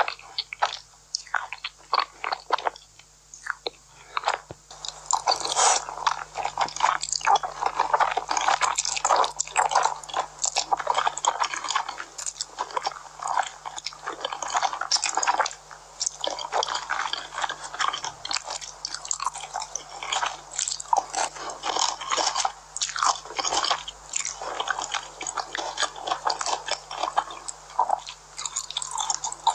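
Close-miked eating: a person biting and chewing food, with separate sharp crunches for the first few seconds, then dense, continuous chewing from about five seconds in.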